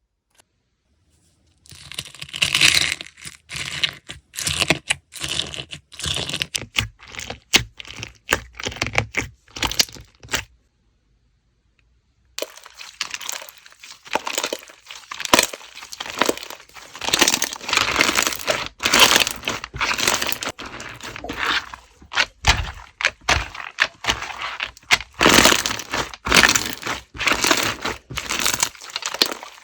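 Watermelon slime being squished and pressed by hand, making dense crackling clicks and pops. It starts about two seconds in and pauses for about two seconds near the middle.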